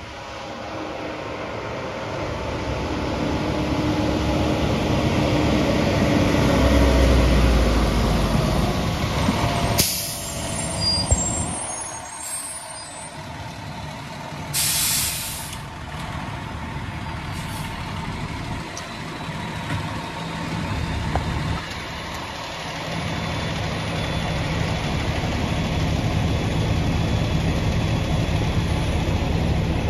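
Fire trucks' diesel engines running as they pull up and stop, with a sharp air-brake hiss about fifteen seconds in and a shorter one a few seconds before it. Later a heavy engine idles steadily.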